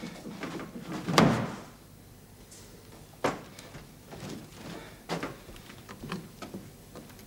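A heavy bang about a second in, then scattered knocks and thumps from above, as of people moving about overhead.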